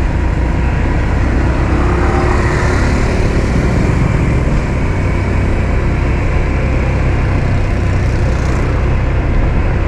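Steady low rumble of a Honda Vision motor scooter being ridden along a road, engine and road noise with traffic around.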